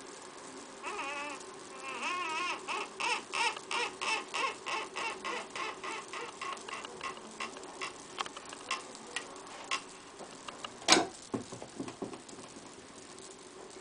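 The wooden doors and weight-driven string mechanism of a model ancient automaton theatre squeak as the doors swing open. A wavering squeak is followed by a run of short squeaks, about three a second, that fade away. One sharp knock comes near the end.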